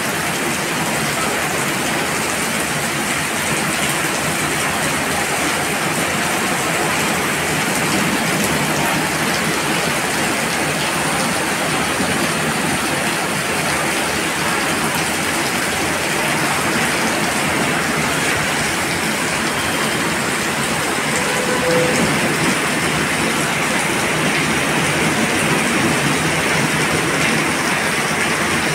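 Heavy rain pouring steadily, splashing on stone steps and paved ground.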